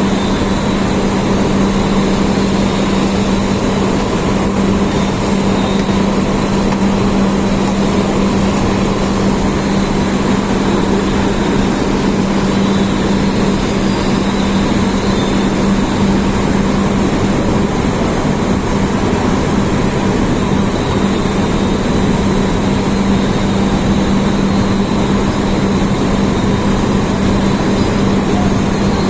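Blast furnace taphole being opened: a steady, loud industrial roar over a strong low hum, with no break.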